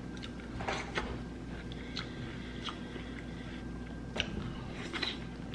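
Quiet chewing and small, sparse wet clicks as a man eats milk-soaked cereal with his fingers.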